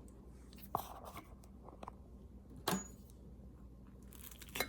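Faint kitchen handling noises: three short knocks or clicks as a hot plate and food are moved about, over a low steady hum.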